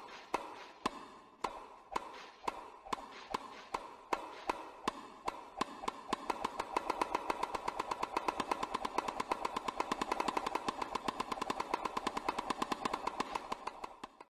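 A series of sharp clicks or taps, about two a second at first, speeding up to a rapid, even rattle from about six seconds in, then cutting off suddenly.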